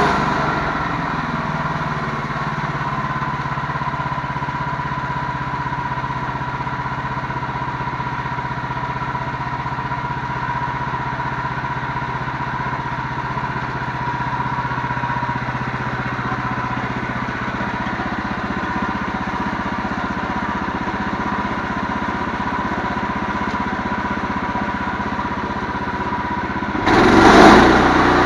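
An engine running steadily at a low, even speed with a steady whine over it. Near the end a brief loud rush of noise cuts in, and the running is louder after it.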